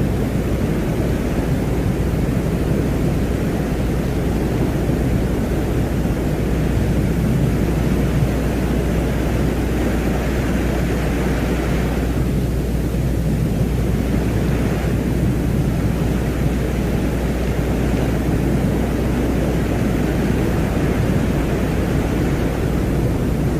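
Space-ambience drone presented as the sound of Venus: a steady, deep rumble of noise with a low hum beneath and a fainter upper hiss that swells and fades, dipping about twelve seconds in.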